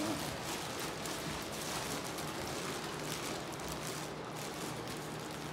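Plastic bag of white powder rustling and crinkling as it is gathered and twisted closed by hand, a steady crackle of many small clicks.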